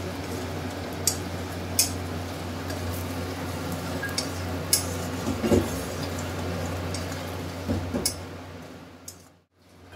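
A metal spatula stirring and scraping a spice paste frying in oil in an aluminium kadai, with several sharp clinks of the spatula against the pan, over a steady low hum. The sound cuts out briefly near the end.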